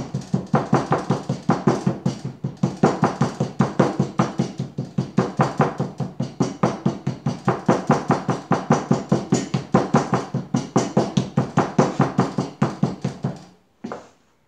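Rubber mallet striking a cloth-covered slab of clay to press it into a plaster tile mold: rapid, evenly paced blows that stop shortly before the end, followed by one brief separate sound.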